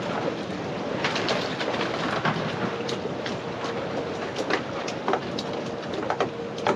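Wind and choppy water washing around a small fishing boat's hull, with irregular sharp clicks and knocks from the boat and fishing gear.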